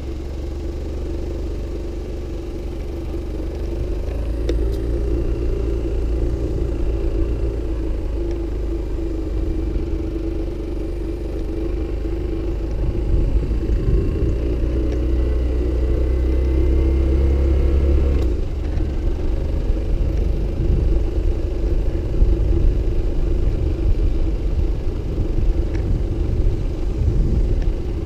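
Motorcycle engine running steadily while riding at low speed, with a low rumble on the microphone. About eighteen seconds in the engine note changes and the low rumble becomes more uneven.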